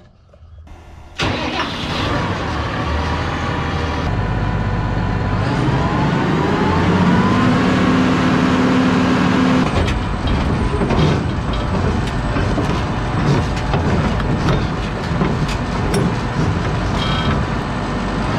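A truck engine comes in suddenly about a second in and runs under load, its pitch rising several times as it accelerates, with rattling and clattering throughout.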